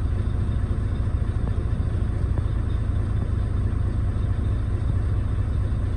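Volvo semi truck's diesel engine idling steadily, heard inside the cab, a constant low rumble, while its air compressor builds system pressure toward the air governor's cut-out.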